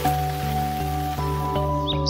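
Background music: held melody notes over a steady pulsing bass, with bird chirps coming in near the end.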